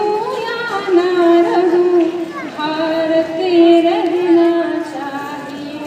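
Singing with music: a high voice holding long, slightly wavering notes.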